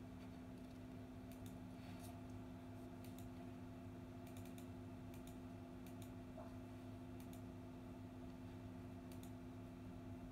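Faint steady hum, with scattered light clicks every second or two.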